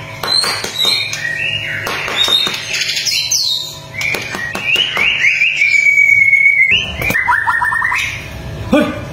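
White-rumped shama singing: a run of varied whistled phrases with notes sliding up and down, one long held whistle about two-thirds through, then a quick falling series of notes.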